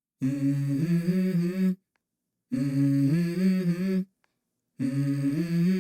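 A voice humming a short melody three times, each phrase about a second and a half long, with silent gaps between them. It is the opening of a song in the background music.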